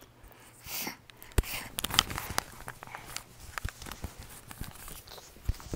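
Crinkling and rustling with many scattered sharp clicks.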